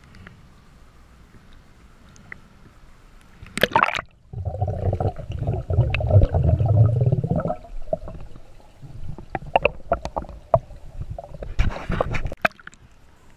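Swimming-pool water heard through a camera at and under the surface: a brief splash just before 4 s, then about three seconds of loud, low gurgling and churning. After that come scattered small clicks and knocks, with another short splashy burst near the end.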